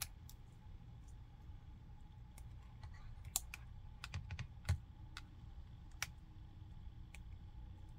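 Faint, scattered small plastic clicks and taps as a spudger works a smartphone's display flex-cable connector, unplugging it and pressing it back into its socket. The clicks come irregularly, about a dozen of them, with a slightly louder one a little past the middle.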